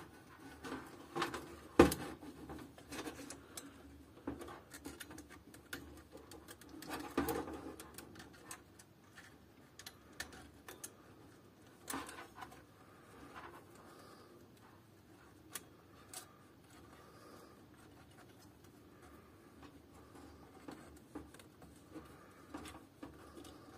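Hands handling a metal port bracket inside a steel computer case and driving small screws with a small screwdriver: irregular light clicks, taps and scraping, with a sharper click about two seconds in.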